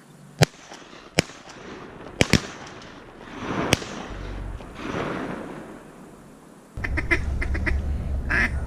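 Ducks quacking: a quick run of short quacks in the last two seconds, the loudest near the end. Before that come several sharp clicks or pops in the first four seconds and two soft rushes of noise.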